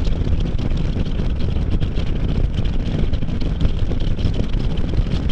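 Wind rushing over the microphone together with the steady drone of a Can-Am Spyder F3's three-cylinder engine cruising along the road.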